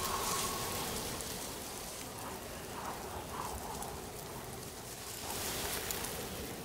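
A steady, rain-like hiss with a few faint short tones in the middle.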